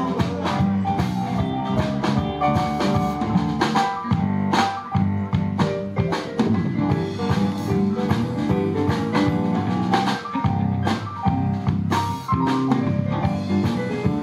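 Live blues band playing an instrumental passage of a shuffle, with no singing: a Kurzweil stage piano, an electric guitar and a drum kit.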